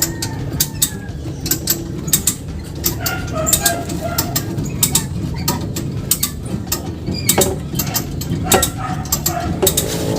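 Metal hand tools working on a vehicle's drivetrain: irregular sharp clicks and clanks, some in quick runs, over a steady low hum.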